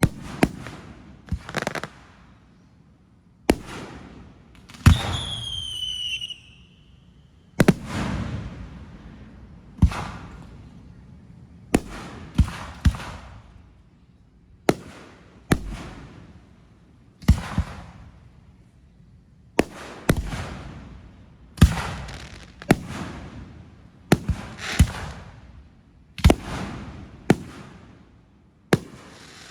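Hand-fired aerial fireworks shells going off in steady succession, a sharp bang every second or two, each trailing off in a fading crackle and rumble. About five seconds in, a whistle falls in pitch for a second or so.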